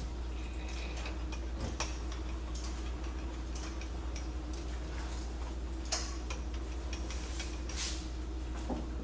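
Metal lathe running during thread cutting: a steady motor hum with irregular light ticks and clicks from the machine and tooling.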